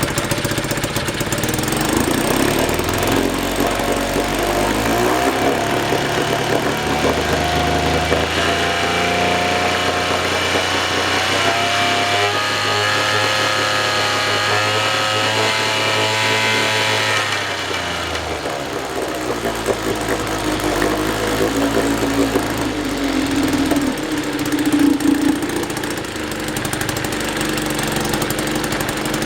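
1947 Elgin two-stroke outboard motor running on a very rich mixture after more than 20 years idle. Its pitch rises as the throttle is opened, holds for several seconds, then drops back about two-thirds of the way through, with another change in speed near the end.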